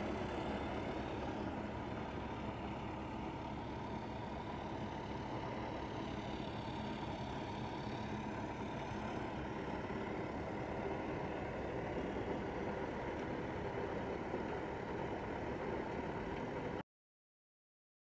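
Portable hot-mix asphalt drum plant running, with its engine and lit drum burner making a steady, even mechanical noise. The noise cuts off abruptly about a second before the end.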